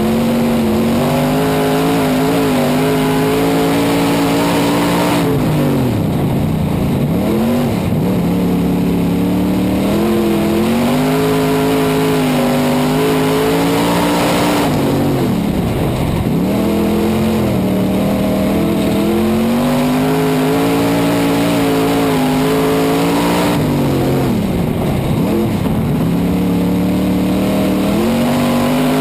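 Super stock dirt-track race car's engine heard from inside the cockpit at racing speed. It holds high revs, then drops off and climbs back three times, about every ten seconds, as the car slows for the turns and powers out again.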